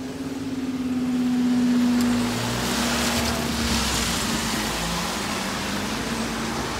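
Level crossing barriers rising, their power unit giving a steady hum that sinks slightly in pitch and stops near the end. A car's tyres hiss on the wet road during the middle of the lift.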